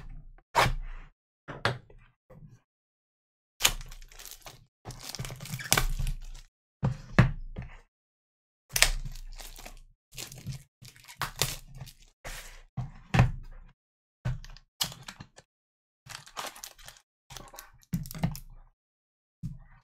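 Small cardboard trading-card boxes being handled and opened by hand: a string of short knocks and taps of cardboard on the table, mixed with stretches of crinkling as the packaging is torn open.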